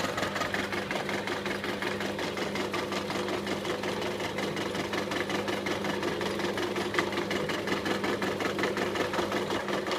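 Deckel FP1 milling machine running, its cutter taking a light finishing pass along a bar: a steady motor hum with a fast, even chatter of the cutter teeth.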